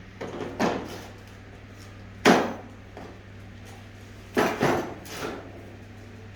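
Several sharp knocks and bangs from aluminium kitchen cabinets being handled, the loudest about two seconds in and a quick double knock a little past four seconds, over a steady low hum.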